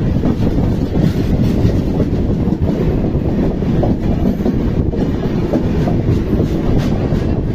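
Steady loud rumble and clatter of passenger-coach wheels on the rails as two trains pass each other on adjacent tracks, heard at close range from a coach doorway.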